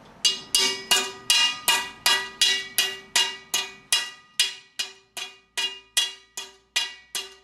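A hammer rapping steadily on a lawn roller's metal drawbar, about two and a half blows a second, each blow ringing with a clear metallic tone. The blows are meant to knock out the drawbar's old pressed-in bushings.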